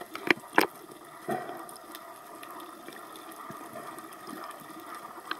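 Underwater ambience: a steady, muffled hiss of moving water. It is broken near the start by two sharp clicks about a third of a second apart, then a softer knock just after a second.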